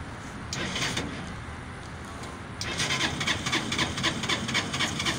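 Motorbike engine of a home-built amphibious flood-rescue tricycle being started. There is a brief burst about half a second in, then the engine catches about two and a half seconds in and runs with a fast, even beat.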